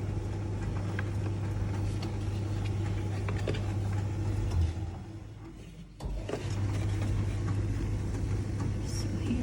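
A steady low hum with scattered faint clicks. It fades out briefly about five seconds in, then comes back abruptly.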